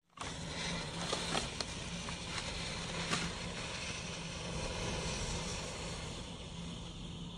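Matches burning inside a glass bottle, fire and smoke jetting from its neck: a steady rushing noise with a few sharp crackles in the first few seconds.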